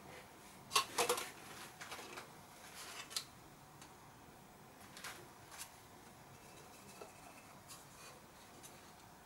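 Light clicks, taps and rustles of painting materials being handled at a table: a quick cluster about a second in, then a few fainter taps spread out.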